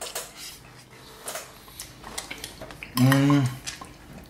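Metal forks and knives clicking and scraping on plates, short taps scattered throughout. About three seconds in, a man gives a short hummed "mm", the loudest sound.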